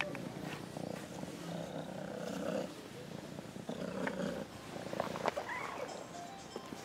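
A calico cat purring while it is stroked, the purr coming in repeated breaths of about a second each, with a few light clicks and rustles of handling.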